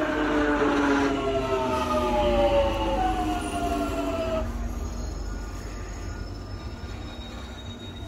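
London Underground 1996 Tube Stock train braking to a stop: its traction motor whine falls steadily in pitch as it slows and cuts off about four and a half seconds in, leaving a quieter rumble with a faint high steady hum as the train stands.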